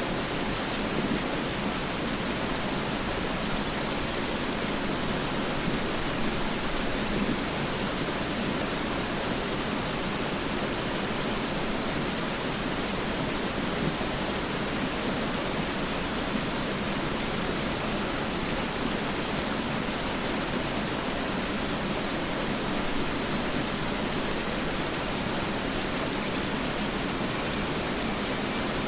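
Mountain river flowing, a steady rush of water without change.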